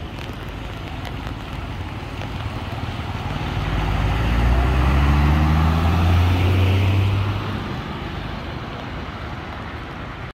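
A heavy vehicle with large tyres drives past close by, its engine note rising and loudest from about four to seven seconds in. Steady road and wind noise runs underneath.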